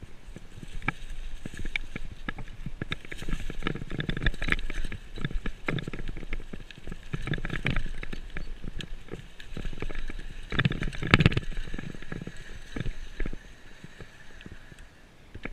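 Mountain bike ridden down a bumpy forest trail over dry leaves and dirt: tyres crunching and the bike rattling and clattering over the bumps, loudest about eleven seconds in.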